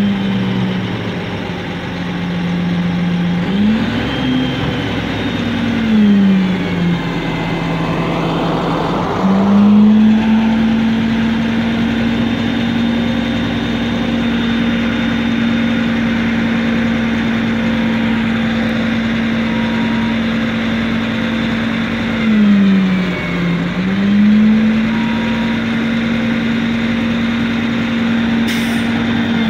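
Diesel engine of a Mack R-model roll-off truck running at raised revs under load while its hoist drags a steel roll-off container up onto the truck. The revs dip and rise several times in the first ten seconds, then hold steady for most of the rest, with one brief dip and recovery near the end.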